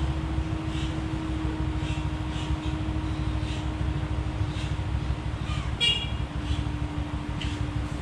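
A motorbike horn gives one short, high-pitched toot about six seconds in, over a steady low rumble and faint hum.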